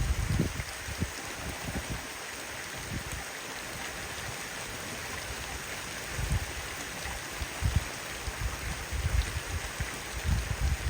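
Steady hiss of rain, with wind gusting against the microphone in low, irregular rumbles near the start and again from about six seconds in.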